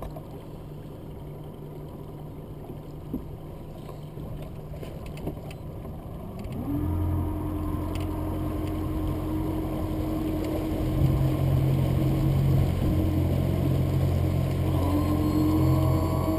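Yamaha F150 four-stroke outboard motor running steadily at low speed, then throttled up about six seconds in: its pitch steps up and it gets louder as the boat accelerates, rising again about eleven seconds in.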